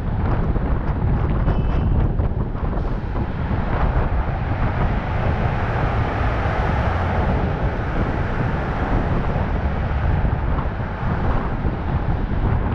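Wind buffeting a roof-mounted camera's microphone over the steady rumble of a vehicle driving on a city road. The road noise swells around the middle while the vehicle passes under an overpass.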